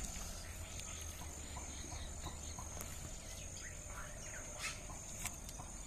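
Outdoor nature ambience: small birds chirping and a high, thin insect trill that comes and goes, over a low rumble of wind.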